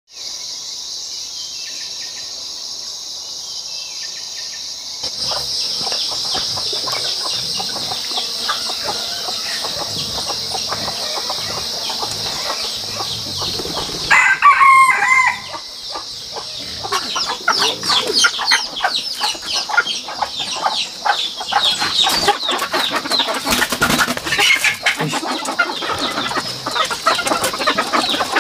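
A rooster crows once, loud, about halfway through. Chickens then cluck and call continuously, with some wing flapping. Through the first half a steady high-pitched drone runs underneath.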